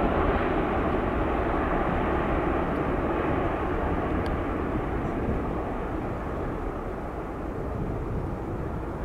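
Jet engines of a Boeing 787-9 Dreamliner, a steady rushing roar that slowly fades as the airliner moves away.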